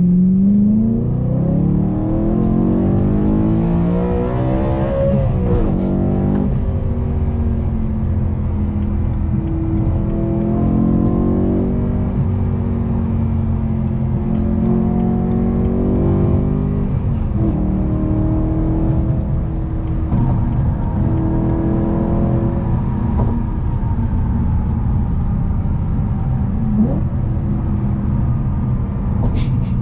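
BMW E92 M3's S65 4.0-litre V8 with a muffler delete, heard from inside the car, pulling hard with a rising note for about five seconds, then easing off. Several shorter, milder pulls follow, each climbing and then dropping in pitch, before the engine settles to a steadier, slowly falling drone near the end.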